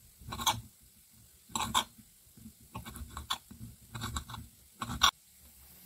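Kitchen knife cutting prunes on a glass cutting board: a series of irregular taps and scrapes of the blade on the glass, the sharpest click near the end.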